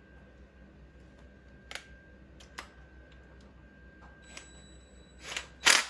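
A few faint scattered clicks of hand tools, then near the end a ratchet wrench starts clicking loudly in quick even strokes, about four a second.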